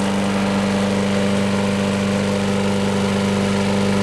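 Single-cylinder Briggs & Stratton engine on a Troy-Bilt walk-behind lawn mower running steadily at one constant speed, as smooth as it can be.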